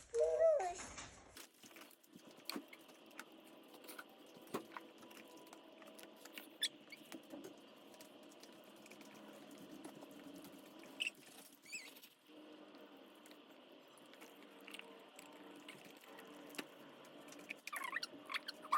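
Scattered light clicks and taps over a faint steady hum, with a toddler's brief squeaky vocal sounds in the first second and again near the end.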